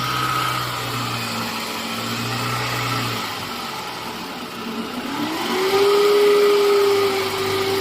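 Toyota alternator whining over the running engine. About five seconds in, the whine rises in pitch, gets louder and then holds steady. This abnormal noise is typical of a burnt-out set of rectifier diodes overloading the alternator.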